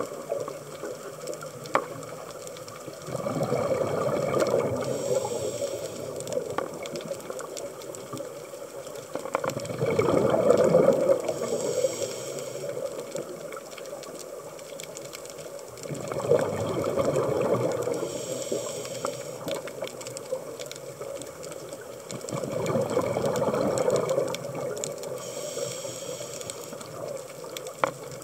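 Scuba diver breathing through a regulator underwater: four swells of exhaled bubbles gurgling past the microphone, about one every six to seven seconds, each followed by a short high hiss.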